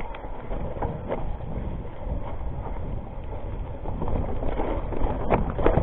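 Wind rumbling on the camera's microphone over the rattle of a Rockrider ST 520 hardtail mountain bike descending a rocky trail, with a few sharp knocks near the end as it hits rocks.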